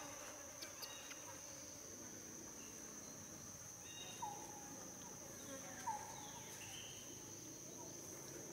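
Faint, steady high-pitched drone of insects in the forest, with a few short falling chirps standing out, the loudest about four and six seconds in.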